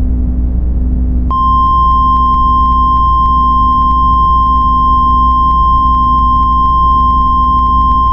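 Emergency alert attention tone: a single steady tone at about 1 kHz that comes in about a second in and holds, over a low droning rumble.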